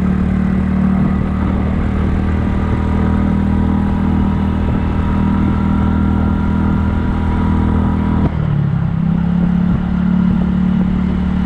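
Kymco People scooter's single-cylinder engine running steadily under way. Its pitch drops briefly about eight seconds in, then picks back up.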